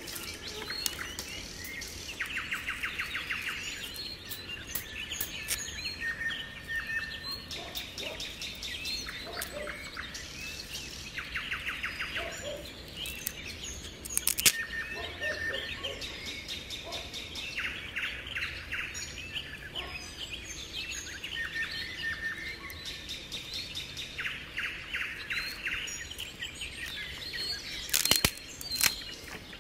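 Woodland songbirds singing, one repeating a short, fast trill every few seconds. A sharp crack of a dry stick being snapped comes about halfway through, and more snapping comes near the end.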